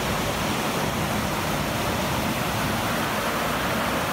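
Water pouring through the gates of an old brick canal lock and churning in the chamber below: a steady, unbroken rush.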